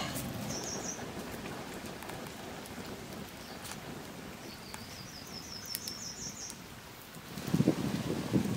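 Wood fire crackling under fish grilling on a bamboo rack, with a steady hiss and scattered sharp pops. A bird calls briefly near the start and again about five seconds in with a rapid run of high notes. Louder rustling and knocking near the end.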